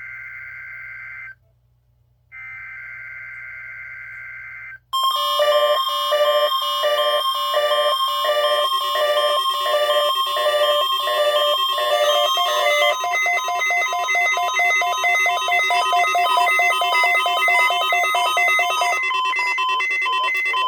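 NOAA Weather Radio weekly test signal. It opens with two screeching bursts of the digital SAME alert-header tones. About five seconds in, a loud electronic alarm of rapidly repeating multi-tone beeps starts, and its pattern shifts partway through.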